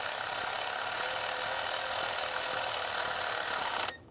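Cordless electric ratchet motor running steadily as it drives in an ignition coil's hold-down bolt, cutting off abruptly near the end.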